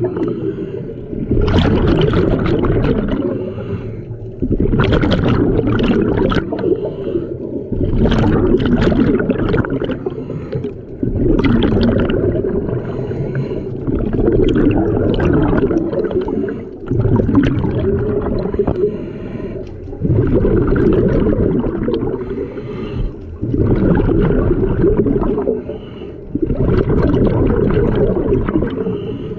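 Scuba diver breathing through an open-circuit regulator underwater. Each breath is a short hissing inhale followed by a longer, low gurgling rush of exhaust bubbles, repeating about every three seconds.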